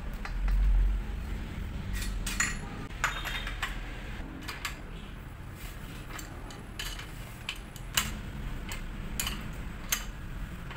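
Metal bicycle tools clinking against a bottom bracket as a splined bottom-bracket removal tool is fitted onto the cup and turned with an adjustable wrench: scattered sharp metal clicks and taps. A low rumble about half a second in.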